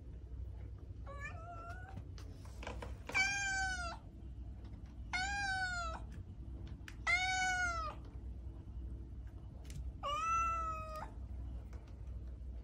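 Domestic cat meowing at a closed door to be let through: one faint short meow, then four loud meows about two seconds apart, each rising and then falling in pitch.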